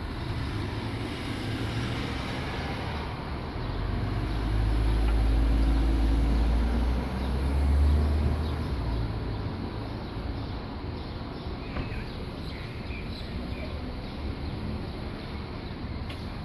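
Low outdoor rumble, such as distant traffic, that swells for a few seconds in the middle, with a few faint, short high chirps near the end.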